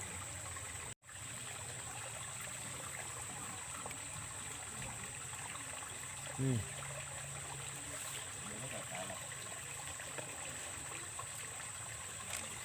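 Steady trickling of water flowing in a ditch, under a constant thin high-pitched tone. The sound drops out for an instant about a second in, and a short falling sound stands out about six and a half seconds in.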